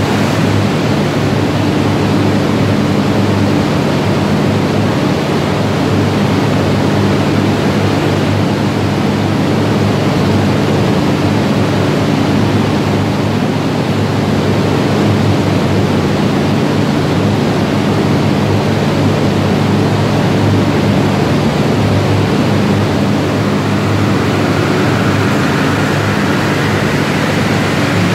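BAIC BJ20's 1.5-litre turbo engine running on a chassis dynamometer under a steady loud rush of air and roller noise, with a low drone. Over the last few seconds a whine rises in pitch as the engine speeds up.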